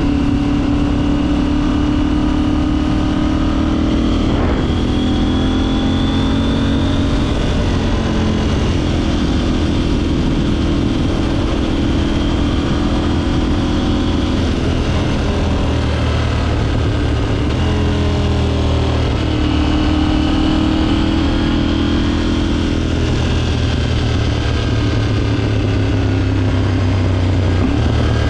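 KTM 790's parallel-twin engine pulling a motorcycle along. The note rises as it accelerates, then drops at gear changes or when the throttle eases, several times over, with a steady rush of road and wind noise underneath.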